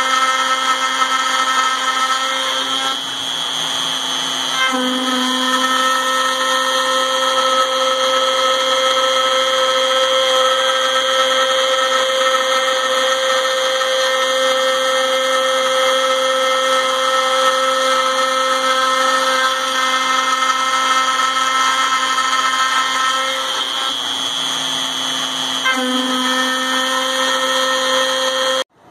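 Router spindle on a MillRight Mega V CNC running with a steady high whine as its end mill cuts an aluminum plate, the tone shifting briefly twice as the cut changes. The sound cuts off abruptly near the end, where the recording stopped mid-cut.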